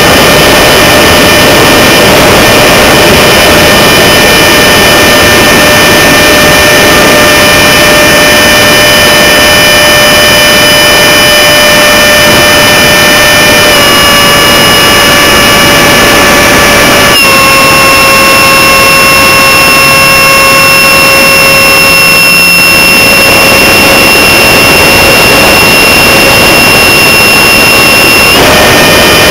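F-4 Phantom jet noise and rushing airflow at a tail-mounted camera in flight: a loud, steady roar with a whine on top. The whine steps down in pitch about halfway through and again a few seconds later, then jumps back up near the end, following changes in engine power.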